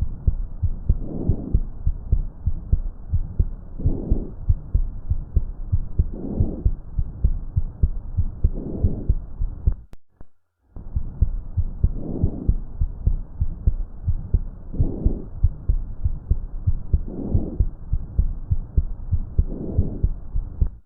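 Recorded lung sounds as heard through a stethoscope: breaths swelling and fading about every two and a half seconds over rapid low thumping. There is a short break about ten seconds in.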